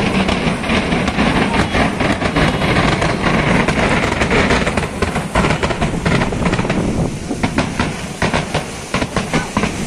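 Kerala temple-festival fireworks barrage (vedikkettu): firecracker bangs packed so close together that they merge into one continuous crackle. After about seven seconds it thins out into separate sharp bangs.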